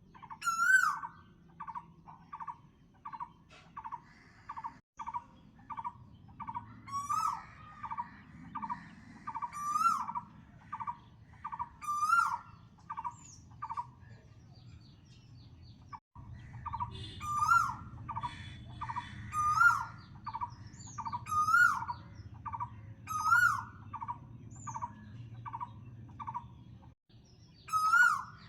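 Bird calls: a whistled call with a rising hook repeats about every two seconds over a steady series of short chirps about twice a second, with a low hum beneath. The sound cuts out briefly a few times.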